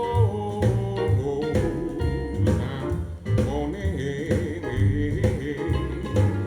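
Blues song played back over Wilson Audio loudspeakers driven by VTL amplification: a pulsing bass line under a bending melody, with singing.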